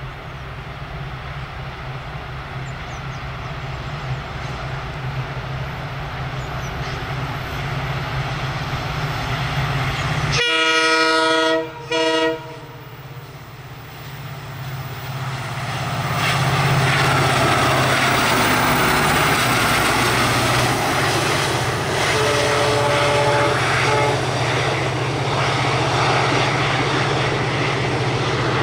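An Indian Railways WDP4D diesel locomotive (EMD two-stroke V16) approaches with its engine drone growing louder. About ten seconds in it sounds its horn, a long blast and a short one. The passenger coaches then roll past with a steady, loud wheel-on-rail noise.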